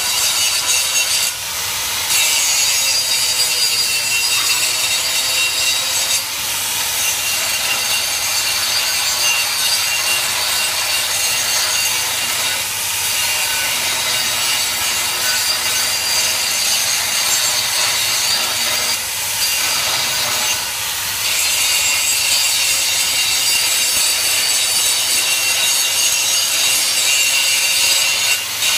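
Hand-held angle grinder grinding a steel plate: a continuous, loud, hissing grind that briefly eases off now and then as the disc is shifted on the work.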